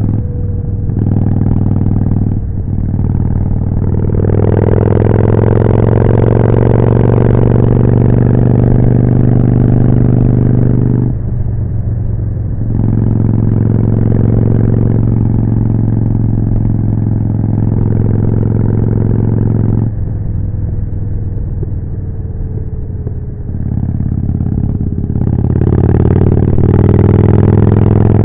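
Harley-Davidson Forty-Eight's air-cooled V-twin running through a Jekill & Hyde exhaust, accelerating hard through the gears with a short drop in sound at each shift. It holds a steady speed, eases off, then pulls hard again near the end.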